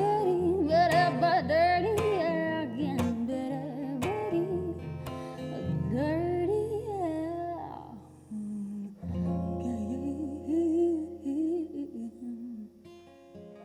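Wordless singing over strummed acoustic guitar, with pitch sliding up and down. A dip comes about eight seconds in, then a last guitar chord is held and rings out near the end as the song closes.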